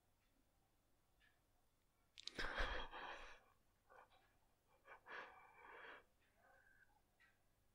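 Near silence broken by breathy sounds from a person, like a sigh or an exhale. The loudest comes about two seconds in, and fainter ones follow around four and five seconds in.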